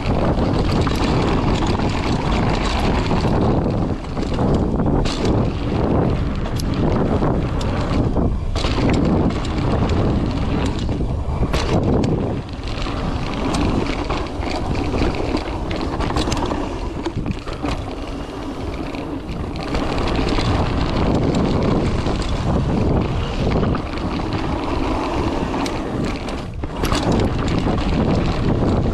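Wind rushing over a GoPro microphone as a mountain bike speeds down a dirt trail, with the tyres rolling over dirt and gravel and the bike knocking and clattering over bumps.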